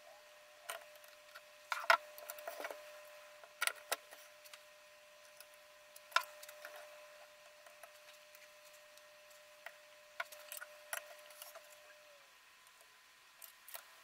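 Scattered light clicks and knocks of a guided knife sharpener being handled and set up, the loudest about two seconds in and a cluster of them around ten seconds in. A faint steady whine sits underneath and stops about twelve seconds in.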